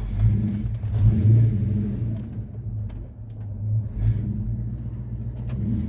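Ford Mustang's 4.6-litre V8 running while the car is driven, a low rumble that swells with the throttle and eases off again.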